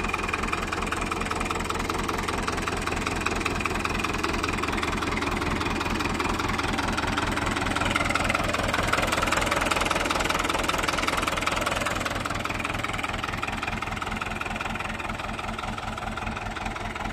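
1972 Fiat 600 tractor's diesel engine idling steadily, a little louder about eight to eleven seconds in.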